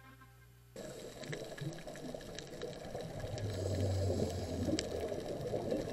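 Underwater ambience picked up by a camera underwater: a muffled, churning water noise with scattered small clicks and crackles. It cuts in suddenly under a second in, after the faint tail of background music, and grows slowly louder.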